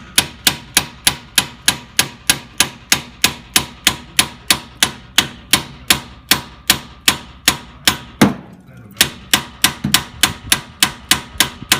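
Steady hammer blows on steel, about three a second with a metallic ring, pounding a tie rod end to break its tapered stud loose. There is a short pause a little past two-thirds through.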